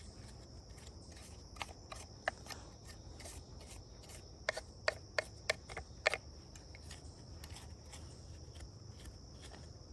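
A toothbrush scrubbing sawdust and debris from a STIHL 462 chainsaw's powerhead, in short scratchy strokes. There is a small group of strokes early on, and a busier run about halfway through.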